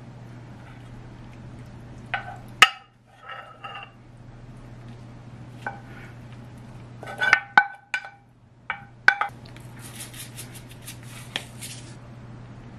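Wooden spoon knocking and scraping against a frying pan and a ceramic plate as food is served, a handful of sharp clinks with a short ring, then a quick run of scraping strokes. A steady low hum runs underneath.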